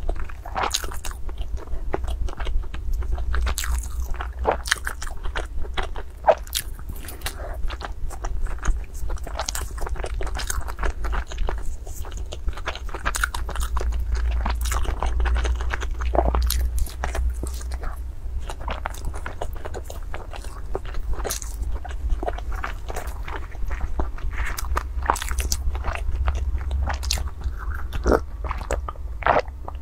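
Close-miked eating: biting and chewing food, with many irregular crunches and wet mouth clicks over a steady low hum.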